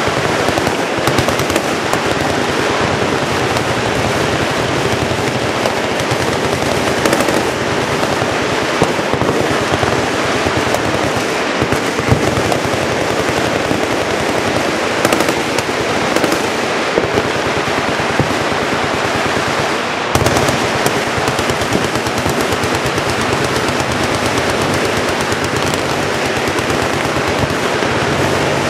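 Machine guns firing on full automatic: a continuous, overlapping rattle of shots with no pause, as from several guns firing together.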